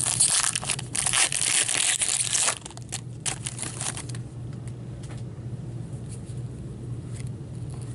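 A foil trading-card pack wrapper crinkling and rustling as it is opened and handled, loudest for the first two and a half seconds. Then lighter rustling and small clicks as the cards are handled.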